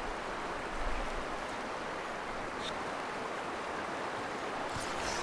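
Steady rushing of a shallow river's flowing water.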